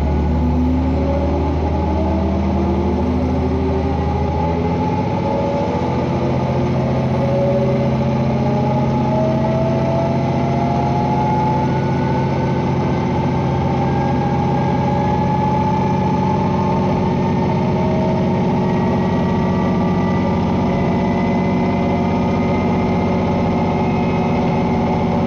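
KiHa 120 diesel railcar under way, its diesel engine running under power as the train accelerates: the engine and drive note rises in pitch, quickly at first and then more gradually. The low engine note changes about five seconds in.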